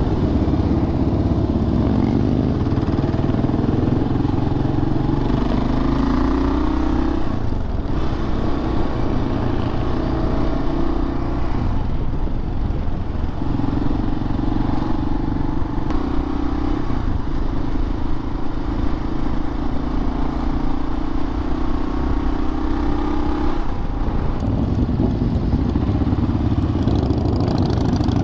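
Motorcycle engine running on the road under way, its note steady but dropping and picking up again a few times.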